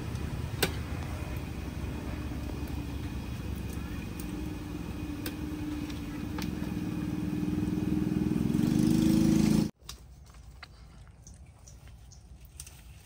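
An engine runs with a steady drone that grows louder over several seconds, then cuts off suddenly about ten seconds in. A quiet background with a few light clicks follows.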